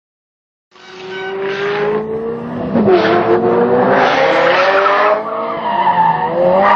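Sports car engines revving hard, with tyres squealing and skidding as a Ferrari 308 GTS slides sideways. The sound comes in suddenly just under a second in, and the engine pitch rises in long sweeps.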